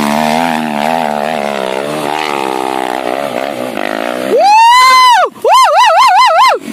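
Dirt bike engine running under load as the bike climbs a steep hill, its note wavering slightly. About four seconds in it is drowned by a much louder high-pitched wail that rises and falls once, then warbles rapidly up and down before cutting off.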